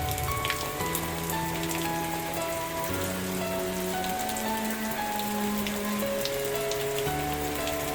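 Steady rain with scattered sharp drop ticks, over soft background music of held chords that change every second or two.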